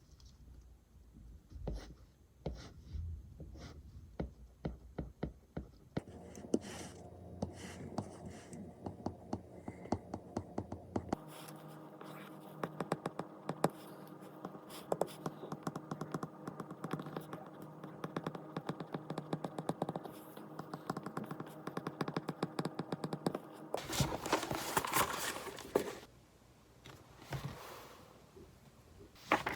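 Quick irregular clicks and taps, like handling small objects, through several cuts. A faint steady hum lies underneath for a while, and a short rustling burst comes about 24 seconds in.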